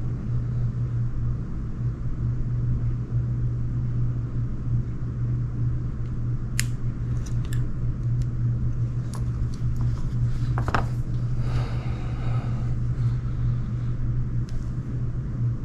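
A steady low hum throughout, with a few light clicks from about the middle on as tweezers pry the small plastic connector of an electronics cable.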